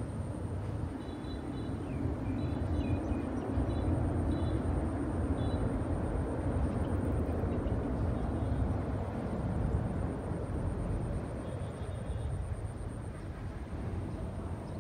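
Jet airliner's engines rumbling as it rolls out along the runway after landing. The sound swells about two seconds in and fades over the last few seconds.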